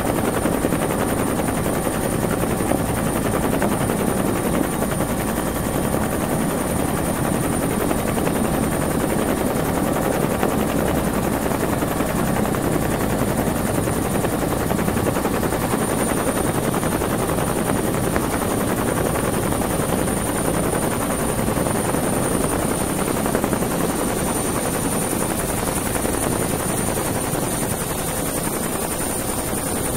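Helicopter running steadily in flight, heard from aboard: a rapid, even chopping of the rotor blades over engine noise, with a steady high tone above it.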